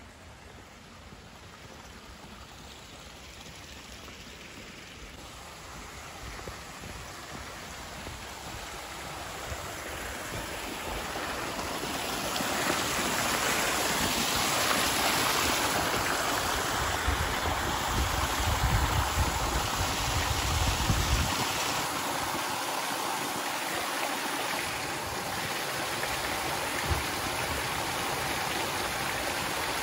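Water pouring from a stone spout and splashing into a pool, a steady rushing splash that grows louder over the first dozen seconds as it is approached, then holds steady. A low rumble on the microphone runs for a few seconds about two-thirds of the way through.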